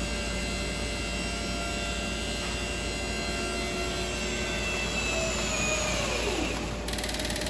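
Swarf compactor machine running with a steady mechanical hum and whine; about six seconds in the whine slides down in pitch, and near the end the sound changes abruptly to a faster, rattling texture.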